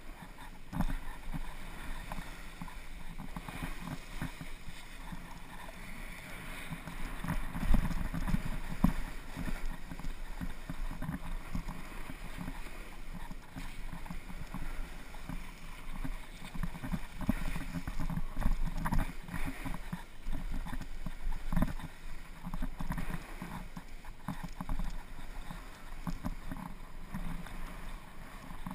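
Edges scraping and chattering over packed, groomed snow on a steady downhill run, with wind rushing over a helmet-mounted action camera's microphone. The scraping swells unevenly, loudest about eight seconds in and again around seventeen to twenty-two seconds.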